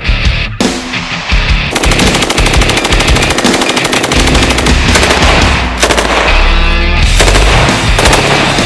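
Rapid strings of rifle fire, the shots coming too fast to count after a brief lull near the start, over background music.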